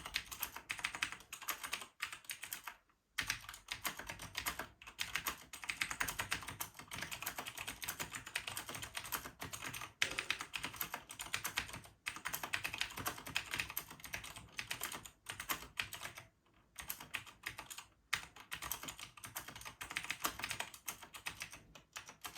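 Typing on an AUVA KB-2102/2 mechanical keyboard with Cherry MX vintage white switches: a fast, dense run of key clicks, with short pauses about three seconds in and again around sixteen seconds.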